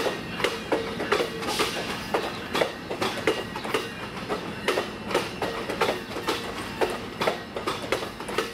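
AMT bilevel commuter coaches rolling past, their wheels clicking over the rail joints in a steady clickety-clack.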